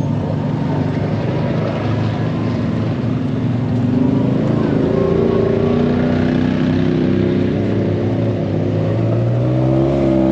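ATV engine running while riding a trail, its pitch climbing as it speeds up about four seconds in and again near the end.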